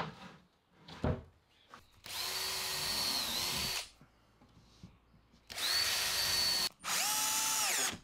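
Cordless drill running in three short bursts of a second or two each, pre-drilling holes and driving screws through an MDF cabinet back. The last burst is lower in pitch and rises and falls at its ends. Two knocks come before the first burst as the panel is laid down.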